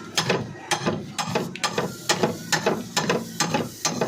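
Rapid series of sharp taps, about four a second and unevenly spaced, from bodywork tools working a dent in a car's side panel.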